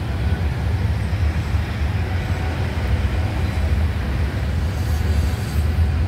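Steady low rumble of a freight train of ethanol tank cars rolling past, with road traffic mixed in.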